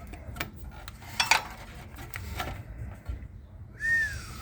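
Scattered light clinks and knocks as engine parts around the snapped timing belt are handled. Near the end comes one short squeak that rises and then falls in pitch.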